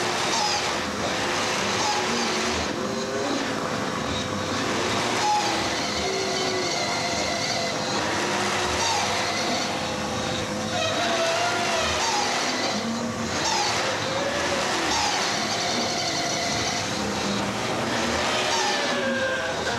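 Live experimental noise performance: a continuous, dense wash of noise with a steady held tone underneath and many wavering, sliding tones over it.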